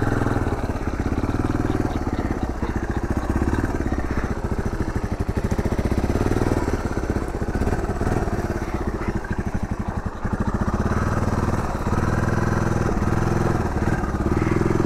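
Honda Big Red 250 three-wheeler's air-cooled single-cylinder four-stroke engine running at low revs as the machine creeps along, its firing pulses coming through plainly. The throttle eases off briefly a few times.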